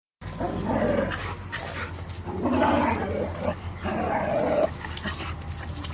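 Dogs play fighting, with three rough, raspy vocalizations of about a second each: one near the start, one around the middle and one just after it.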